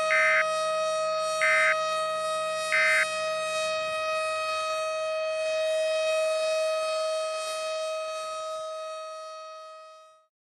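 Three short warbling data bursts, about a second and a half apart, of an Emergency Alert System end-of-message signal. Under them runs a steady tone rich in overtones, which fades out over the last two seconds.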